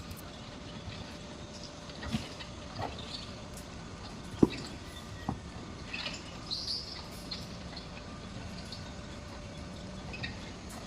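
Construction site sounds: scattered knocks and clicks, one sharp knock about four and a half seconds in, over a faint steady hum, with a few short high chirps near the middle.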